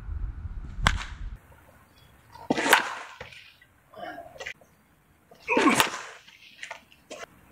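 Baseball bat striking pitched balls: three sharp cracks of contact, about a second in, near three seconds and near six seconds, with fainter knocks in between. Wind rumbles on the microphone in the first second or so.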